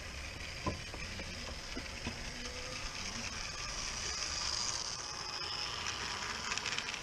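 Small 16mm-scale garden railway train running close by: a soft hiss that swells as it passes nearest, with a few light clicks from the wheels on the track.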